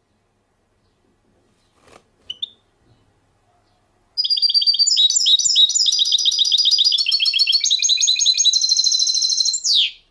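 A songbird singing: a couple of short chirps about two seconds in, then from about four seconds a loud, fast, continuous song of rapid trills that ends with a falling note near the end.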